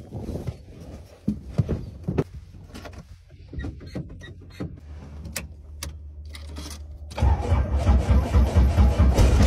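Clicks of cockpit switches and controls being set, then about seven seconds in the Robinson R22 helicopter's piston engine cranks and catches, a loud uneven pulsing that grows stronger.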